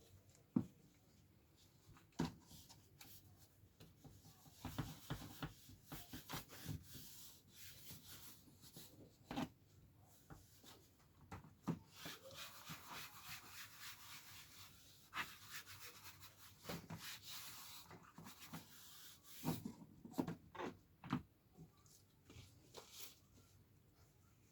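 Cloth or applicator pad rubbing over plastic car trim in soft strokes, faint, with scattered light knocks and taps from handling.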